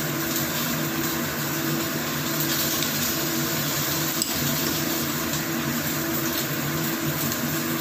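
A running electric motor's steady hum and hiss, with one light click about four seconds in.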